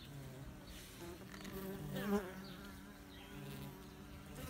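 Honeybees buzzing at a hive entrance, single bees flying close past so that their hum glides up and down in pitch, with one louder close pass about two seconds in.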